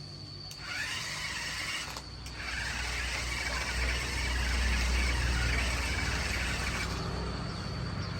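Toy off-road RC car's electric motor and gearbox whirring as it drives: a short run of about a second, then a brief pause, then a longer run of about four and a half seconds.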